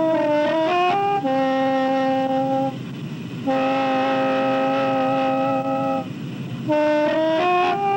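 Khaen, a Thai bamboo free-reed mouth organ, playing held chords of several notes at once, with quick rising runs of notes about a second in and again near the end.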